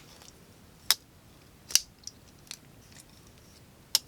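About five short, sharp clicks and taps spread irregularly, from a folding knife being handled.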